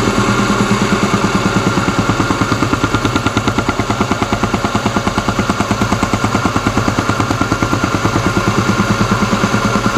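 Metal-cutting machine tool running under a cut, with a rapid, even pulsing of about ten beats a second over a steady hum.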